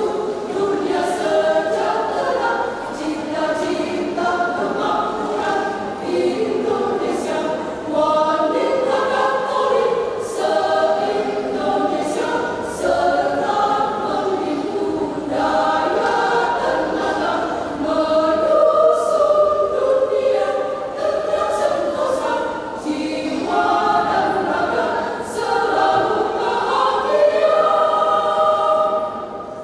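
Women's choir singing a song in several harmonising parts, with crisp sung consonants; the singing stops suddenly right at the end.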